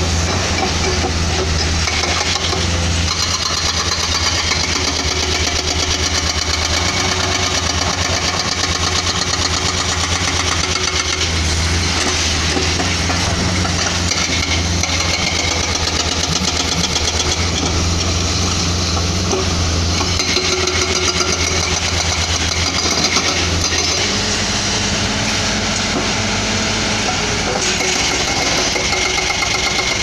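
Excavator-mounted hydraulic breakers hammering limestone in rapid, continuous blows, over the steady running of the excavators' diesel engines.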